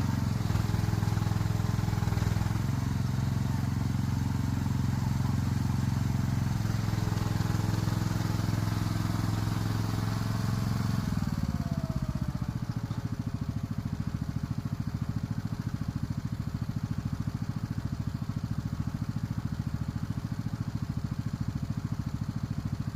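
An engine running steadily; about eleven seconds in its pitch drops and it settles into a slower, evenly pulsing idle.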